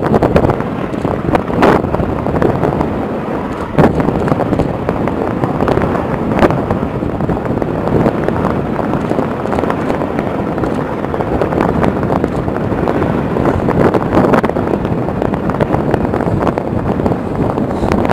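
Strong wind buffeting the microphone: a steady, gusting rush with a few sharp pops scattered through it.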